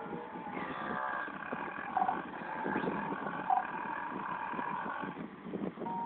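A cartoon pig's long, rough burp from an animated film's soundtrack, starting about half a second in and lasting about four seconds, played on a TV and picked up through a phone's microphone.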